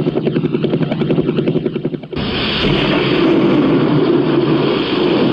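A fast, steady rhythmic chopping. About two seconds in, a sudden loud thunderclap sound effect breaks in and rolls on as a heavy rumble.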